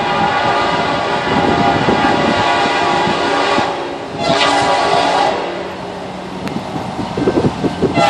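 Norfolk Southern locomotive's air horn blowing a long chord, cut off briefly about four seconds in and sounded again, then easing off while the train rumbles and its wheels clatter near the end.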